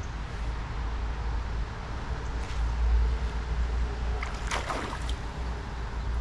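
Wind buffeting the microphone as a steady low rumble over a soft wash of river water, with a brief sharper noise about four and a half seconds in.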